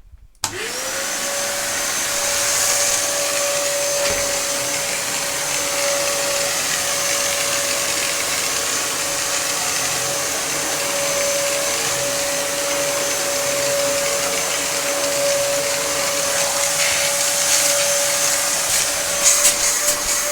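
Dyson upright vacuum cleaner switched on about half a second in, its motor spinning up quickly and then running steadily with a high whine. There are a few light rattles near the end.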